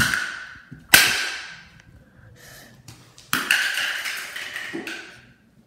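A hammer strikes a Minion toy on a concrete floor three times: once at the start, again about a second in, and again about three and a half seconds in. Each blow is a sharp crack followed by a ringing tail, and the last one rings on for over a second.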